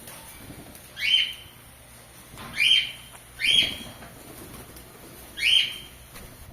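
Ring-necked parakeets calling: four short, loud rising calls spaced one to two seconds apart.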